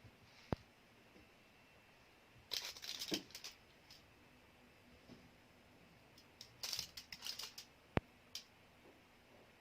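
Close-miked crunching of a cheese stick being bitten and chewed, in two crackly bursts a few seconds apart, with a few sharp single clicks between them.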